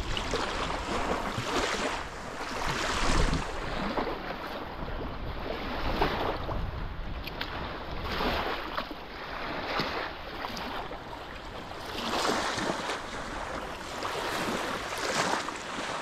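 Small lake waves washing onto a sandy shore, swelling and easing every few seconds, with wind rumbling on the microphone.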